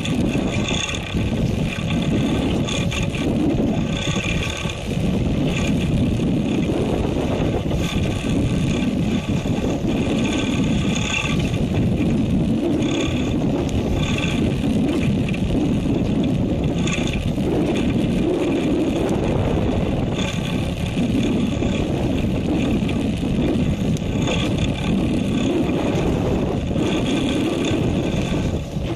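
Fishing boat's engine running steadily under a constant rush of wind and sea. Several faint high tones waver in and out above it.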